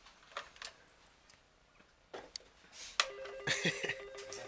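A few faint clicks and rustles, then about three seconds in a sharp click and a telephone starts ringing: an electronic ring that warbles rapidly between two alternating tones and keeps going.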